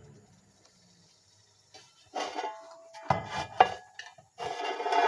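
Near silence, then from about two seconds in, metal objects clink and rattle as they are handled on a work surface, some strikes ringing briefly, and the clattering grows busier near the end.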